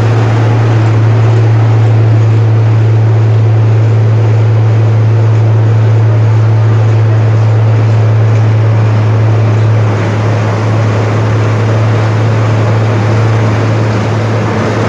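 Wirtgen W 150 cold milling machine running steadily: a loud, even drone with a strong constant low hum under a dense mechanical rumble.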